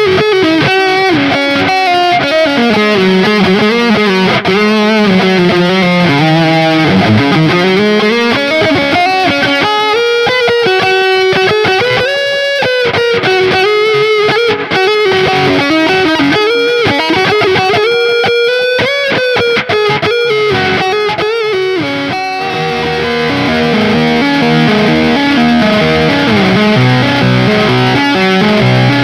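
Electric guitar with Ibanez STD-C1/STD-C2 humbucker pickups played through distortion: a lead melody with gliding bends and slides. About 22 seconds in, it switches to a lower, choppier riff.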